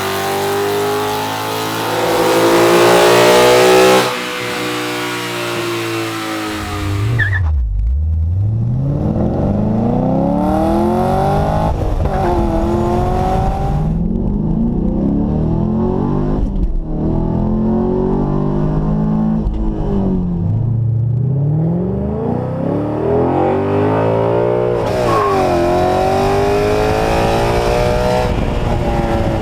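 Performance car engine accelerating hard through the gears several times: its pitch climbs steadily, then drops sharply at each upshift. For the first few seconds a loud rushing noise lies over the engine and is the loudest part.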